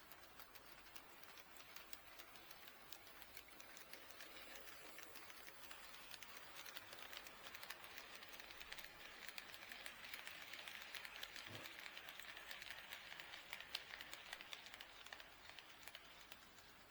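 HO-scale model train running past on sectional track: a faint, rapid clicking and light rattle of wheels over the rail joints. It grows louder over several seconds, then fades near the end.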